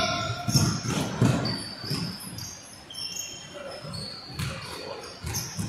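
Basketball game play: a ball bouncing on the court floor with thuds and short high-pitched squeaks of players' sneakers on the floor.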